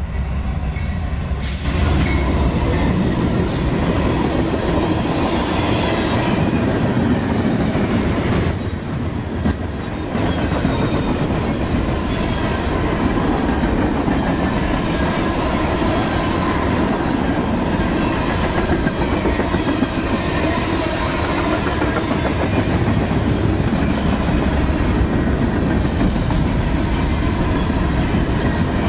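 CSX freight train rolling past close by, a long string of covered hopper cars with wheels running on the rails; the noise jumps up sharply about a second and a half in and then holds steady.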